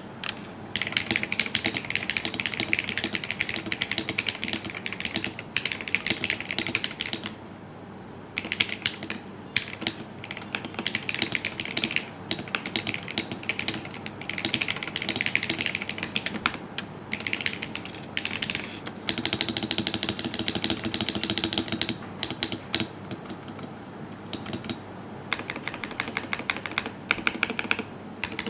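Lamzu Jet75 Hall-effect mechanical keyboard being typed on: fast, dense keystrokes in runs, with a few short pauses.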